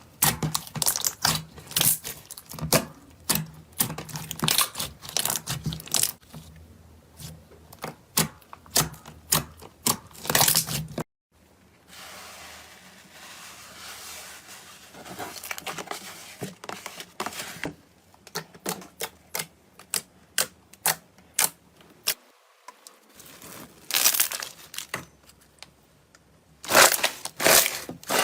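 Slime being handled and pressed, with rapid sharp crackling clicks and pops. About eleven seconds in the sound cuts off abruptly, followed by a softer, smoother stretch before the quick crackling picks up again.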